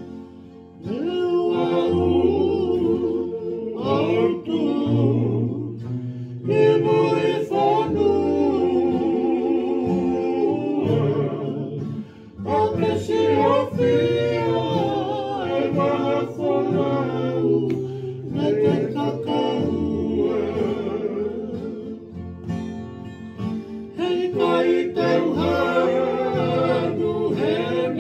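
A group of men singing together in harmony over strummed acoustic guitar and ukuleles, in the style of a Tongan kalapu (kava club) song. The voices come in about a second in, and there is a short break about twelve seconds in.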